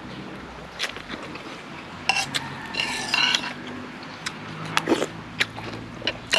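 Eating sounds: a spoon or fork clicking and scraping against a dish in scattered light strikes, with a busier patch of clatter about two to three seconds in.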